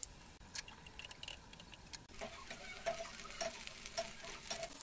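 Battered cauliflower pakoras deep-frying in hot oil: a steady sizzle full of crackles and pops. From about two seconds in, a run of fairly regular ticks comes through, roughly two a second.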